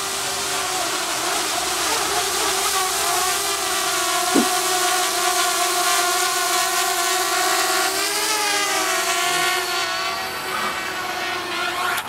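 Parrot Bebop Drone quadcopter's propellers whining steadily over a hiss as it descends in its automatic low-battery landing. The pitch wavers a little near the end, and the sound drops away suddenly at the very end.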